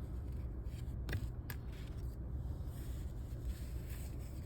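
Trading cards being handled and flipped through, giving a few faint clicks and rustles over a steady low rumble inside a parked car's cabin.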